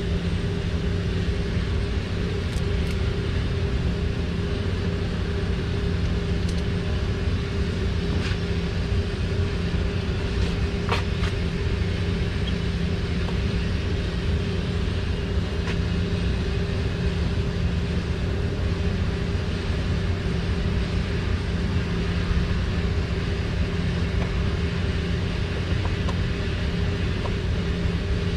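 Steady low machine drone with a constant hum running throughout, with a few faint clicks on top.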